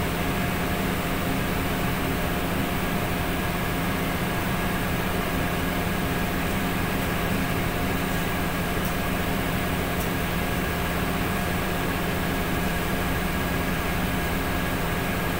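Pickup truck engine idling steadily with the hood open, an even hum with a few constant tones that holds unchanged throughout.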